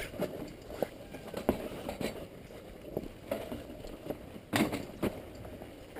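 Footsteps and a downhill mountain bike clattering on a rocky trail as the bike is walked down: irregular knocks and clicks, with a louder clatter about four and a half seconds in.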